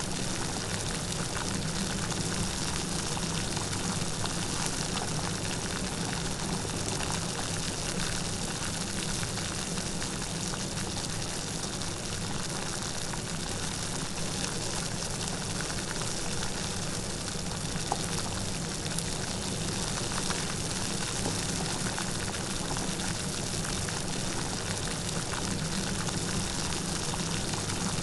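Steady light rain: an even hiss dotted with the patter of individual drops.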